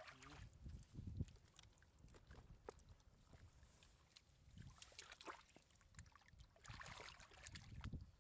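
Faint splashing and sloshing of shallow muddy water as hands and a woven bamboo basket scoop through it, with scattered small knocks. It grows louder near the end as the hands churn the water.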